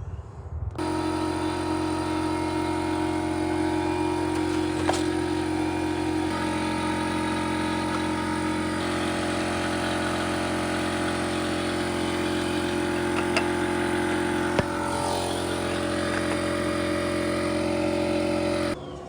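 A motor running steadily with a constant pitch. It starts abruptly just after the beginning, shifts slightly in tone a few times, and cuts off suddenly near the end.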